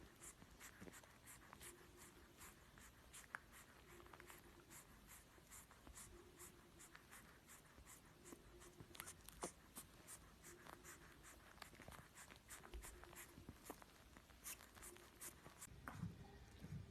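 Near silence with faint, irregular scratching and clicking, busier in the second half.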